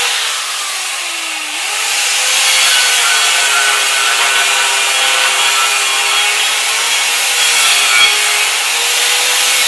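An angle grinder cutting steel plate, running continuously with its motor pitch sagging and recovering a couple of times as it bites into the metal.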